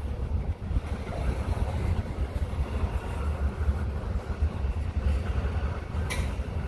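Norfolk Southern freight train running by, a heavy, uneven low rumble, with a short hiss near the end.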